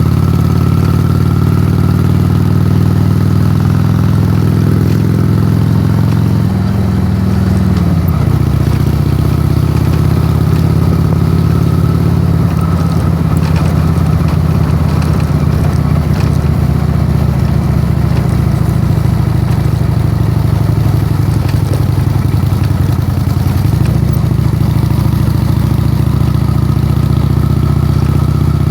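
2006 Honda Shadow's V-twin engine heard from a phone mounted on the handlebars: running steadily at first, changing pitch about a quarter of the way in, rising and then falling in pitch through the middle, and settling back to a steady low run near the end.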